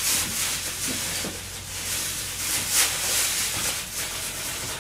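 A steady kitchen hiss that swells and fades every second or so, over a low steady hum.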